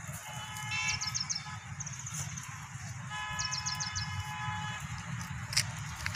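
A vehicle horn sounds twice, each a steady, unwavering tone lasting about a second and a half, over a constant low background rumble.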